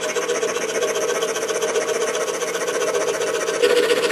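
DeWalt scroll saw running steadily, its fine No. 3 Olson blade stroking rapidly up and down as it cuts a thin wooden workpiece along a paper template. The sound gets louder about three and a half seconds in.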